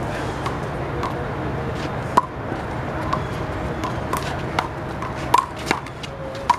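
Rubber handball being struck by hand and smacking off the wall and court in a rally of one-wall handball: sharp slaps at irregular intervals, the loudest about two seconds in and a quick cluster near the end, over a steady background rumble.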